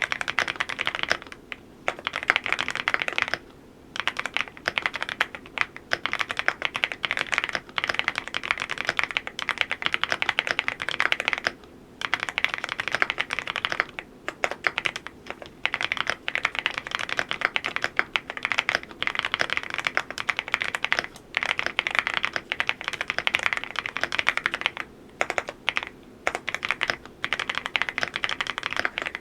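Fast, continuous typing on a Cidoo V87 Pro full-aluminium custom mechanical keyboard, with rapid key clicks broken by a few brief pauses.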